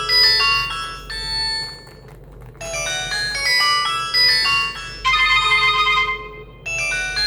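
Mobile phone ringtone: a bright synthesized melody of bell-like notes, played in repeating phrases with short breaks between them, one phrase ending on a held chiming chord.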